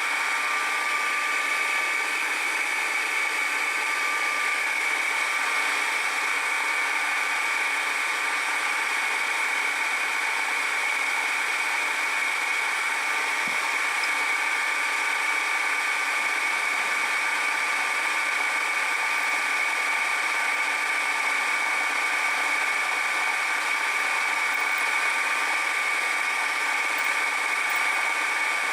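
Machine tool running steadily at about 800 RPM through a cutting pass, with a steady high whine over the running noise.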